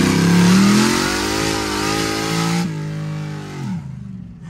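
LS V8 engine in a Ford Crown Victoria pulling hard, heard from inside the cabin. The revs climb steadily under a loud rush of noise, break sharply about two and a half seconds in, then fall away near the end as the throttle closes.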